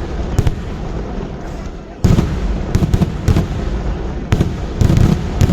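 Fireworks going off: an irregular run of sharp, loud bangs over a low rumble, jumping louder about two seconds in and clustering again near the end.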